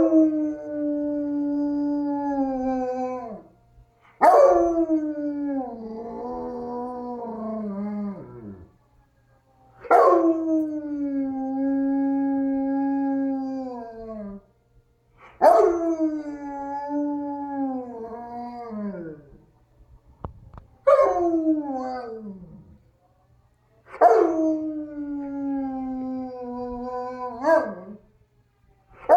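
German Shepherd dog howling, set off by a tornado siren recording. About six long howls with short pauses between them; each starts high, drops and holds a steady pitch, then trails down at the end.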